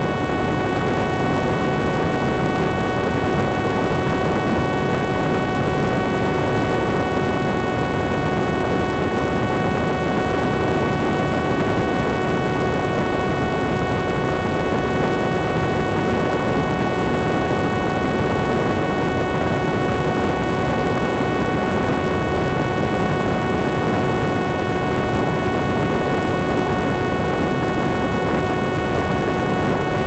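Parrot Disco fixed-wing drone's electric pusher motor and propeller running at a constant high throttle. A steady, unchanging whine sits over a heavy rush of wind noise as the drone holds high-speed flight.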